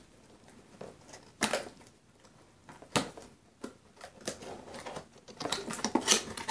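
Cardboard box being opened with a pocketknife, the blade cutting at the end flap: a few separate clicks and scrapes, then a quicker run of cardboard scraping and rustling near the end.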